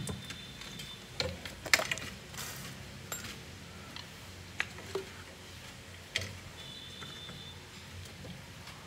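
Scattered light clicks and knocks, about half a dozen spread over several seconds, from washing-machine parts and wiring being handled by hand during reassembly.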